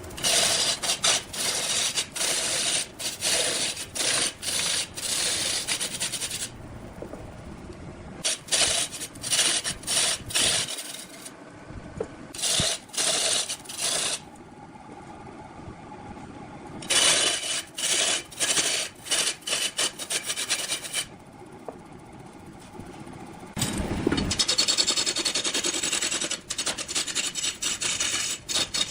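Woodworking tool scraping and cutting into wood, a grating, rasping noise that comes in several long bursts of rapid strokes with short pauses between.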